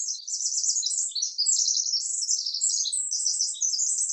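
A songbird chirping and twittering in quick, high trills with no pause.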